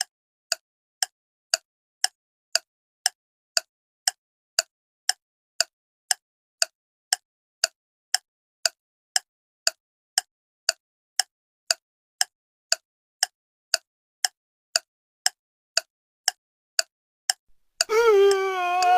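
A short, pitched tick or plop sound effect repeated evenly about twice a second, with dead silence between the ticks. Music with a singing voice comes in near the end.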